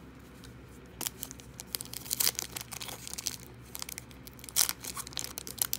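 A trading-card pack wrapper being torn open and crinkled in the hands, a quick run of crackles and rustles that starts about a second in.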